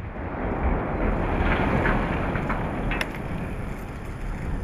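Deep rumbling just after a dynamite blast as a 145-foot, 700-ton reactor exhaust stack topples, with a sharp crack about three seconds in.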